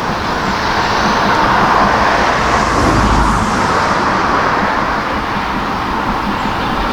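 A vehicle passing by: a steady rush of noise that swells to its loudest about three seconds in, then fades.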